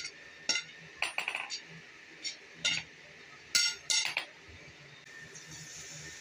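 Hand hammer striking a red-hot steel tyre lever on an anvil: about ten sharp, ringing clinks in irregular groups. About five seconds in the hammering stops and a steady hiss begins as the hot tip is quenched in a bowl of water.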